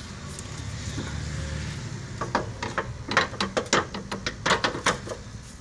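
A new transmission mount being set into place by hand on a Mazda 3, its bracket making a string of quick, uneven clicks and knocks against the metal for about three seconds. The clicks come after a couple of seconds of quieter rustling handling.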